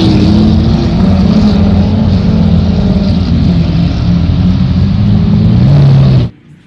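Lamborghini Aventador's V12 engine running at low revs as the car creeps forward, the note holding fairly steady with slight dips in pitch. It cuts off abruptly about six seconds in.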